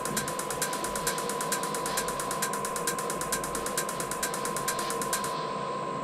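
Chinese 8 kW diesel air heater running: its fuel dosing pump ticks rapidly and evenly over a steady whine from the blower. The ticking stops near the end.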